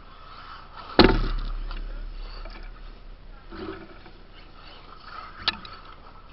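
A loud thump about a second in, its low rumble dying away over a couple of seconds, then a single sharp click near the end.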